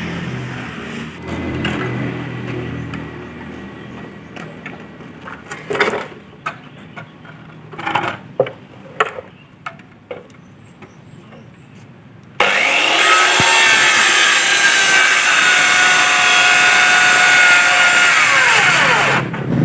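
Handheld electric circular saw cutting through a bamboo pole: a loud, high whine that starts abruptly about twelve seconds in and runs on, with a brief dip and some of its tones dropping in pitch near the end. Before it, a low hum with a few sharp knocks.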